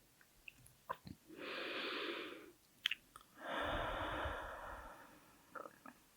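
Heavy, slow breathing close to a sensitive microphone: one long breath, then a stronger, longer one that fades away. Small wet mouth clicks come before and between the breaths.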